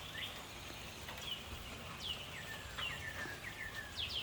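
Songbirds chirping in short, quick falling notes, repeated every second or so, over a steady hiss of rain.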